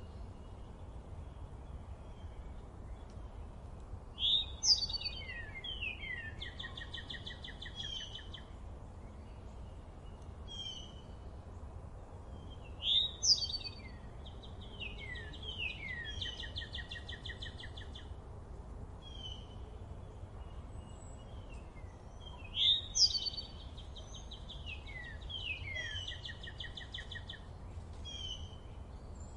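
A songbird singing the same phrase three times, about nine seconds apart: a high note, a few falling slurred notes and a trill. Shorter chirps fall in between, over a low steady rumble.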